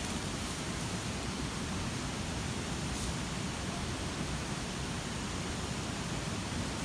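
Steady rushing noise with no distinct sounds in it, heaviest in the low range, with a faint tick about three seconds in.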